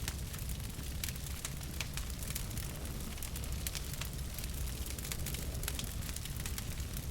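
Wood fire in a fireplace crackling, with frequent irregular sharp pops and snaps over a steady low rumble of the burning logs.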